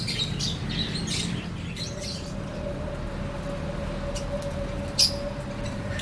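Budgerigars in an aviary chirping: scattered short high chirps, the loudest about five seconds in, over a steady low hum. A faint steady tone joins about two seconds in.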